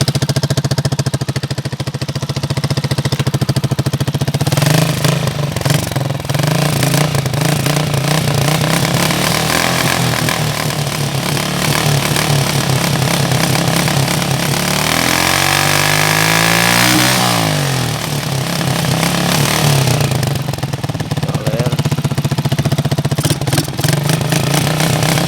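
Carbureted 1999 Honda CG single-cylinder four-stroke motorcycle engine running on its stock exhaust, mostly holding a steady note. About two-thirds of the way through it is revved briefly and settles back.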